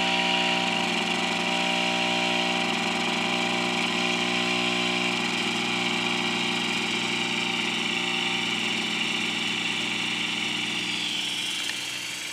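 A fog machine's 120-volt AC electromagnetic pump buzzing steadily as it pumps fog fluid, running strongly again now that the air has been purged from the line. A steady hiss runs with it, and the whole sound eases slightly near the end.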